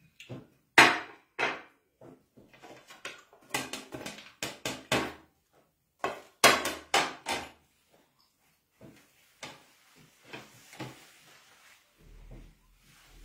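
Plates and a bowl being handled and stacked on a table, clattering with a series of sharp knocks, loudest in the first seven seconds and fainter after.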